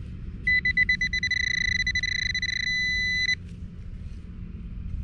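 Nokta AccuPoint pinpointer alarm tone as the probe finds metal in the dig hole. A high beep starts about half a second in as fast pulses, runs into a steady tone, and cuts off after about three seconds.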